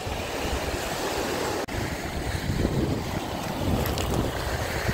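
Wind buffeting the microphone over the steady wash of sea surf on a pebble shore, with a momentary dropout about a third of the way in.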